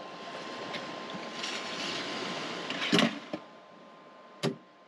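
Steady hiss under a faint constant high-pitched tone, with a sharp knock about three seconds in and a duller knock near the end, after which the hiss fades.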